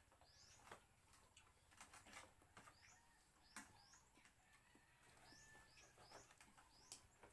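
Faint small-bird chirps, short high notes often in pairs, recurring every second or so, with soft clicks of spoons and forks on plates.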